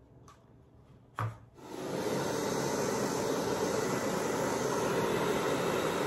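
A click about a second in, then a handheld hairdryer switches on and runs steadily, blowing air over wet acrylic paint to spread it in a Dutch pour.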